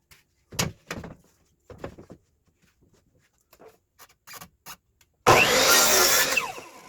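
A few light wooden knocks as boards are handled, then, about five seconds in, a brief burst of an electric saw running and cutting wood, a second and a half long with a gliding motor whine, then tailing off.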